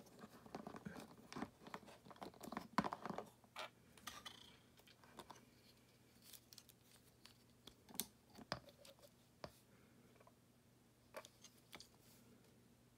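Faint clicks, taps and scrapes of a plastic action figure being handled and set on its plastic stand. They come thick for the first three seconds or so, then only a few isolated clicks follow. A faint steady hum runs underneath.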